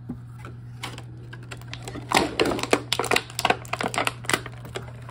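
Rapid clicking and crackling of small toy packaging being handled and pried open: a few faint clicks at first, then a dense run of clicks from about two seconds in.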